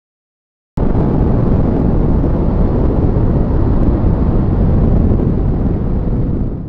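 Motorcycle riding at highway speed, heard as a loud, steady rush of wind and road noise with no clear engine note. It cuts in suddenly after a moment of dead silence about a second in.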